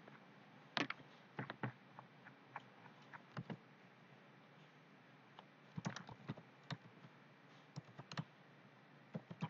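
Computer keyboard keys being typed, faint clicks coming in short bursts with pauses between them.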